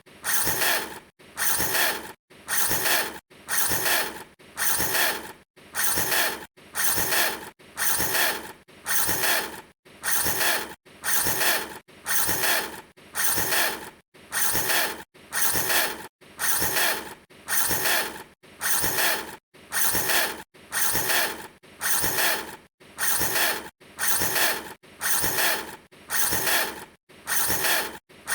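A short mechanical noise repeated very evenly, about once every second and a quarter, each burst lasting a little under a second with a silent gap between, like one clip looped over and over.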